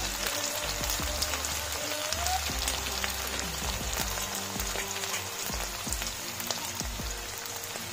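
Sliced onions sizzling in hot oil in a wok: a steady frying hiss with many small crackling pops.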